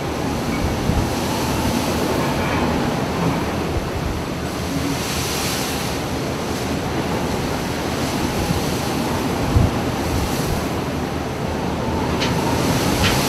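Storm wind and heavy seas breaking against a ship, a steady rushing roar with wind buffeting the microphone. A few sharp knocks come near the end.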